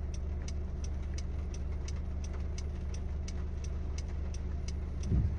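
Car interior with a steady low engine hum and an even ticking of about two and a half clicks a second, the rhythm of a turn-signal indicator.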